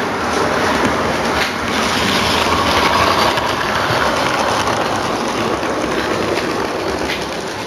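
Model train running along the layout's track: a steady whirring, rolling noise with a few clicks of the wheels over the rail joints, growing louder as it comes close, then slowly fading.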